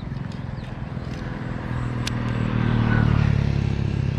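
A motorcycle engine running, growing louder about halfway through, with a single sharp click about two seconds in.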